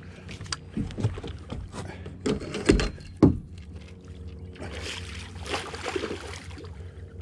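Knocks and handling noise of fishing gear in a small boat, two loud knocks about halfway, then a hooked chum salmon splashing at the surface as a landing net goes into the water, over a steady low hum.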